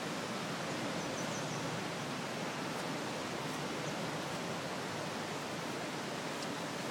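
The Loup river in flood: a steady rush of fast-flowing floodwater over its banks.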